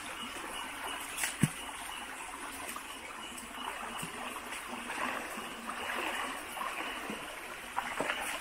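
Shallow forest stream running and trickling steadily. A sharp knock about a second and a half in, and a few splashing steps in the water near the end.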